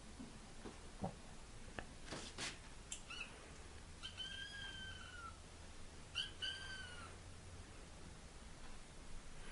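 Cat meowing four times in a high voice. A short call comes about three seconds in, a long call with a falling end follows about a second later, then two short calls close together. Soft knocks and a brief rustle come before the calls.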